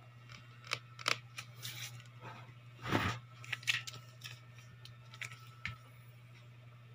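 Handling noise: light clicks and scratchy rustles, with one louder scrape about three seconds in, over a steady low hum.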